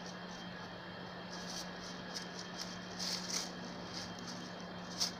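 Dry leaves and frosted grass rustling and crackling in a few short bursts, the sharpest near the end, as a small dog pushes its nose through them hunting for mice, over a steady low hum.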